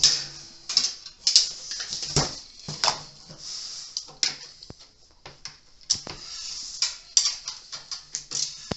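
Irregular metallic clicks and scrapes of hand tools and hardware as nuts are tightened onto long bolts of a TV antenna's mounting brackets.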